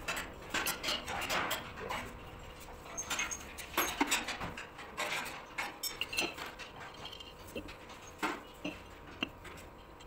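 Irregular metallic clinks and taps of a pulley and bolts being handled and fitted on the flywheel hub of a single-cylinder diesel engine.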